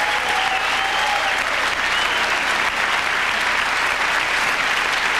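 Large theatre audience applauding steadily, the even clatter of many hands, with a few voices calling out in the first second or so.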